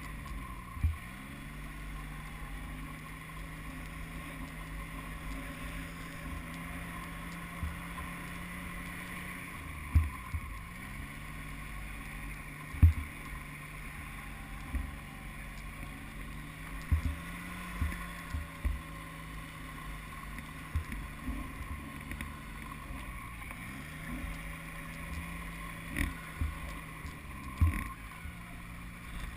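Snowmobile engine running under way. Its pitch drops and climbs back about four times as the throttle is eased and reopened, and there are scattered sharp knocks.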